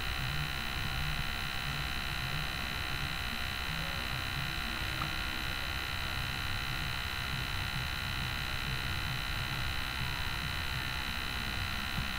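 Steady electrical hum and buzz with hiss, made of many unchanging tones from low to high: the background noise of the screen-recording microphone.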